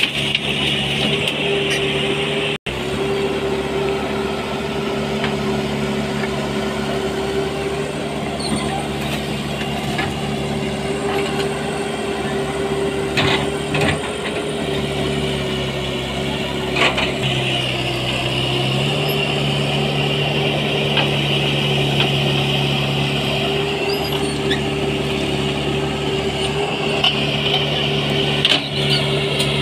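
JCB JS140 tracked excavator's diesel engine running steadily under load, with a steady hydraulic whine. The engine note dips briefly about two-thirds of the way in, and there are a few sharp knocks as the machine works.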